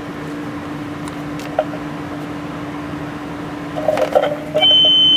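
CB radio test bench: steady static hiss with a constant low hum. About four seconds in come a few clicks, then a loud, steady high-pitched tone near the end.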